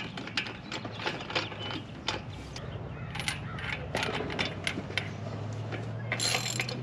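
Irregular metallic clicking and ratcheting from a hand tool working the handlebar stem of a BMX bike as it is set up for riding. A low steady hum comes in near the end.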